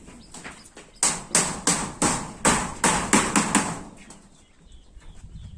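A carpenter hammering: about ten quick, sharp hammer blows in under three seconds, starting about a second in.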